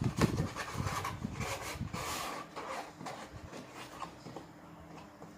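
Packaging being rummaged through by hand: irregular rustling, rubbing and small knocks, busiest in the first couple of seconds and then fading.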